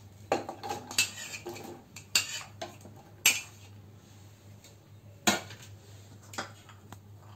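Chopped onions pushed from a steel plate into a non-stick kadhai, with a series of sharp metal clinks and knocks of plate against pan, the loudest a little past three seconds and again past five seconds. Little or no sizzle.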